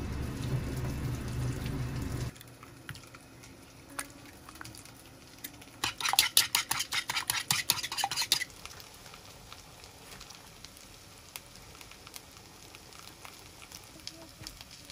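Cooking sounds from a pot of soup being made. A low steady noise cuts off suddenly about two seconds in. Later, for about two seconds, a utensil stirs quickly in the pot with a fast run of light clattering strokes, with only faint kitchen sounds around it.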